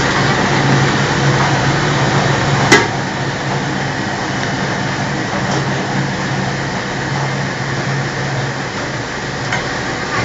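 Chips and wafer fryer machine running: a steady low hum with an even hiss over it, and one sharp knock about three seconds in.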